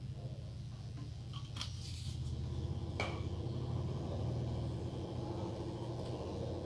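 Steady low hum with a few light clicks, the sharpest about three seconds in; near the end, tweezers take hold of a small LED chip board on the bench.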